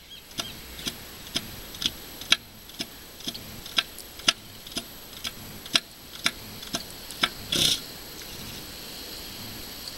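Northern elephant seal bull giving its territorial threat call: a steady run of sharp, clapping pulses, about two a second. A longer, louder burst comes near the end, and after it only a steady hiss remains.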